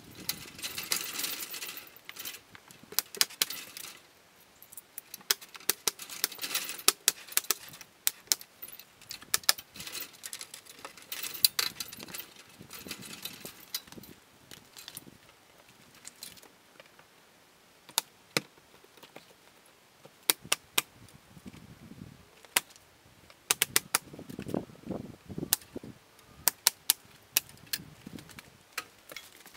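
Carpentry work on a house wall: sharp knocks and clicks at irregular intervals, some loud, with a few short spells of hiss and some duller thuds.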